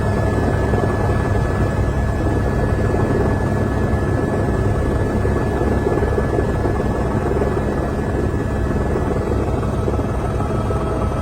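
Helicopter in flight, its engine and rotor giving a steady loud drone with a constant high whine on top.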